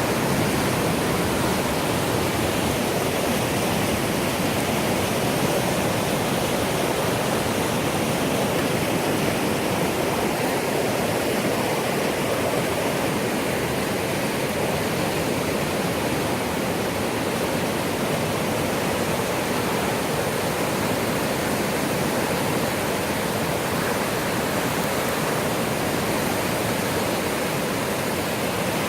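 Steady rush of the Millstone River's flowing water, an even, unbroken noise.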